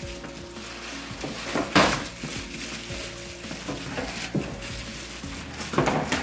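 Quiet background music with a few sharp knocks and clatters of things being handled. The loudest knock comes about two seconds in, with more near the end.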